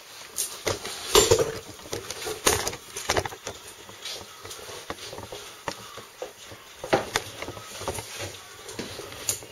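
Irregular knocks, clicks and rustles from a handheld camera being moved and set down. The loudest knocks come about a second in and again around seven seconds.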